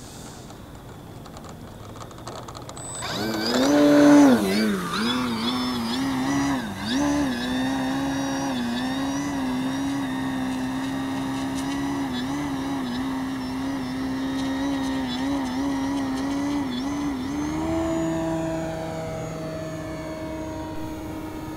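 Electric motor and propeller of an OMP Super Decathlon RC plane throttling up for takeoff about three seconds in, then a steady whine that wavers slightly in pitch with throttle and passes, stepping up a little in pitch near the end.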